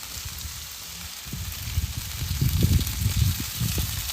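Lamb loin chops sizzling on a barbecue grill: a steady hiss. From about a second in, irregular low rumbling surges come in and are the loudest part.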